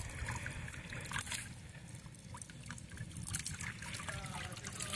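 Knife scoring a jaraqui fish: a run of small, irregular cutting clicks and scrapes as the flesh is cut across to break up its fine bones.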